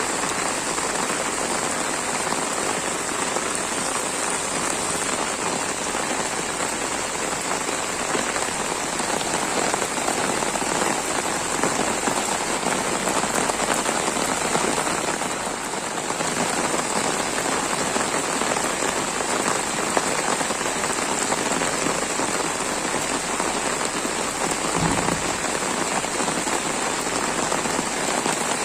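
Steady rain falling and pattering on surfaces, an even hiss that holds without let-up.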